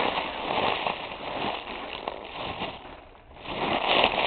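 Crinkling and rustling of a silver foil balloon as it is squeezed and handled, a steady crackle that dips about three seconds in and swells again near the end.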